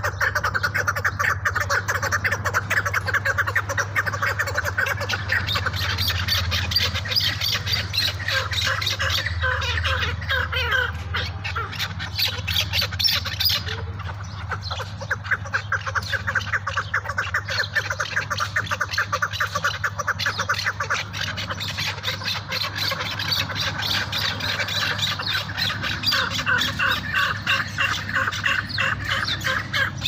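Caged chukar partridges calling: a continuous, rapid chatter of repeated clucking notes that eases a little midway, over a steady low hum.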